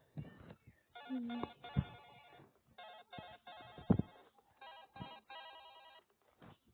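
A built-in ringtone on a Lenovo Smart Tab M8 playing through the tablet's speaker: a series of short electronic tone patterns with gaps between them, with a few low thumps, the loudest about four seconds in.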